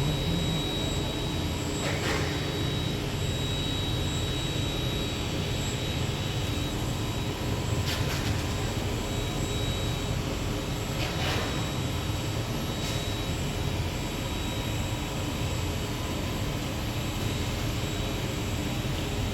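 Mazak CNC machining centre running: a steady machine noise with a thin high whine, and short hisses about 2, 8 and 11 seconds in.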